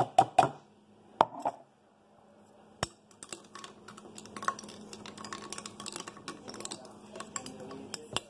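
Light clicking and clinking of ice cubes against a glass measuring cup: a few separate knocks in the first second and a half, then, from about three seconds in, a run of many small quick clicks.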